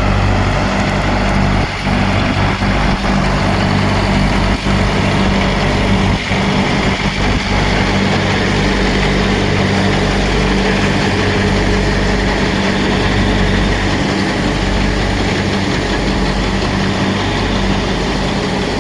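Sonalika Tiger 65 HP CRDI tractor's diesel engine running at a steady speed.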